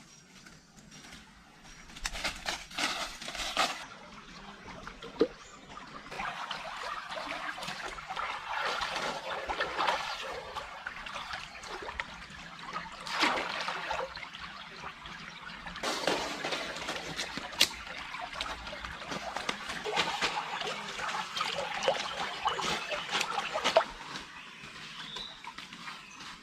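Water trickling and splashing in irregular bursts, with scattered clicks.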